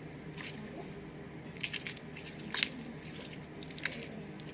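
Clear slime being squeezed and worked in the hands, giving a few short wet squishing pops and clicks, the loudest a little past halfway.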